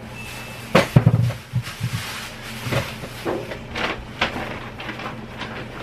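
Plastic grocery bags rustling and crinkling as groceries are unpacked, with a few dull knocks about a second in.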